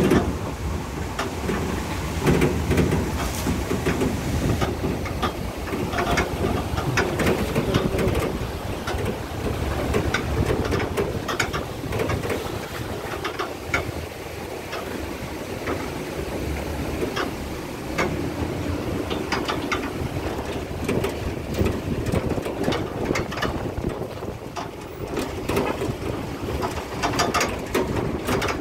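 A vehicle jolting along a rough dirt track: a steady low rumble with constant irregular rattles and knocks.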